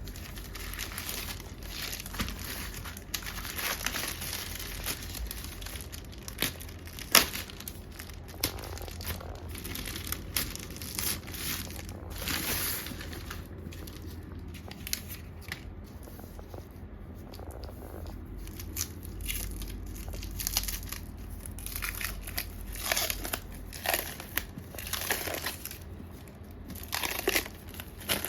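Packaging being handled and opened: irregular crinkling and crumpling rustles with sharp crackly strokes, easing off for a few seconds a little past the middle.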